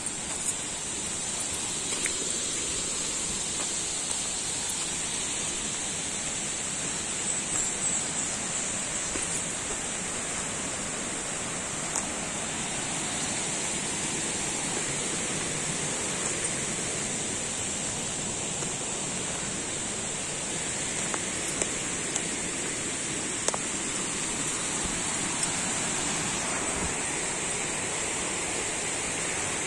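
Steady outdoor rushing noise, like running water, with a continuous high-pitched drone over it and a few light clicks scattered through.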